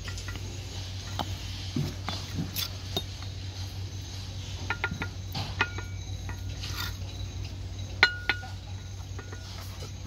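Steel bricklaying trowel scraping mortar and tapping hollow clay bricks into place: scattered clinks and taps, some with a short metallic ring, the loudest about eight seconds in, over a steady low hum.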